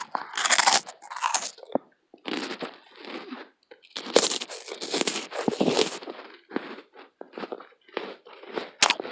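A person biting into and chewing a crunchy cookie close to the microphone, in irregular bursts of crunching.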